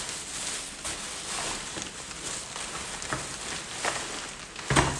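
Kitchen clatter: light knocks and rustling of utensils and objects being handled, with one loud thump near the end.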